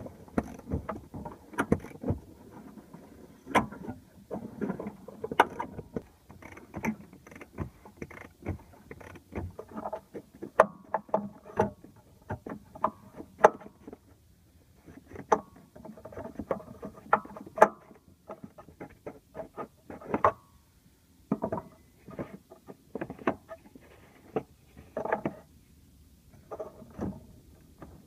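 Hand tools working on a Honda fuel pump's access: a ratchet turning a homemade steel removal tool on the fuel pump lock ring, then the steel tool and metal ring clattering as they are lifted off and the plastic pump top is handled. The sound is a run of irregular clicks and knocks, a few of which ring briefly in the middle.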